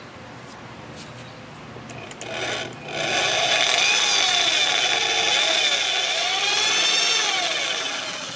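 Corded electric drill boring through a steel tow bar bracket with a metal-cutting twist bit. It runs quietly at first, then about three seconds in goes loud and steady as the bit bites, its motor pitch wavering under load, and eases off near the end.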